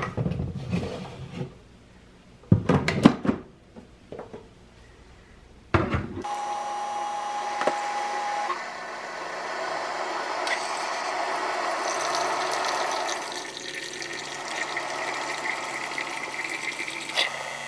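Plastic knocks and handling as the water reservoir is set back on a Keurig coffee maker. About six seconds in, the Keurig starts a brew cycle: a steady tone for about two seconds, then the machine running with liquid streaming into a glass jar. It is running a descaling cycle with a water and apple cider vinegar mix.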